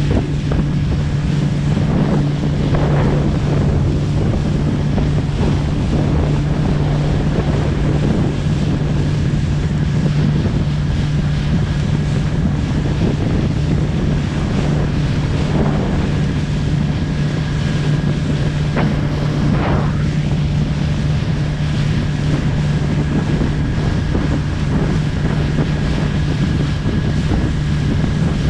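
Fishing boat's engine running steadily under way, a constant low hum, with wind buffeting the microphone and a few splashes of waves against the hull.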